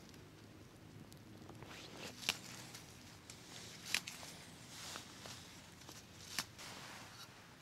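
Fresh leaf stalks being snapped off a low plant by hand, with light rustling of leaves: three sharp snaps stand out, about two, four and six seconds in, with smaller ticks between.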